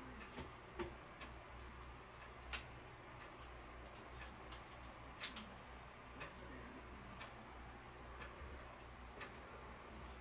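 Faint ticking about once a second, with a few louder, sharper irregular clicks (the loudest about two and a half and five seconds in), over a steady low hum.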